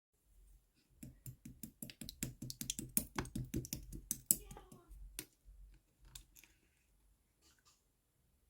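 A fast run of light clicks and taps, about five a second for some four seconds, then a few scattered clicks.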